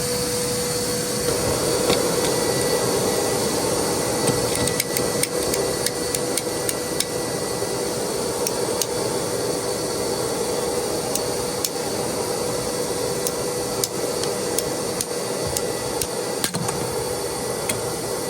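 Cordless wet/dry vac motor running steadily, with many scattered sharp clicks and knocks over it. It is being used to pull condensate out of the clogged PVC drain line.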